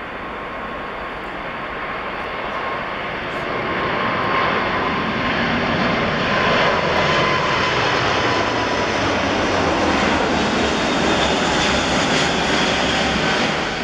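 An Airbus A380's four jet engines at takeoff power as it climbs out. The engine noise grows louder over the first four seconds, then holds steady, with a faint whine running through it.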